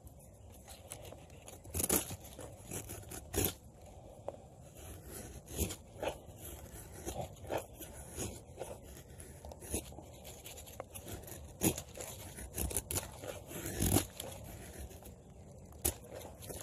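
Quickhatch Quicklore knife blade carving a dry stick: a string of short, irregular cutting and scraping strokes, some sharper and louder than others.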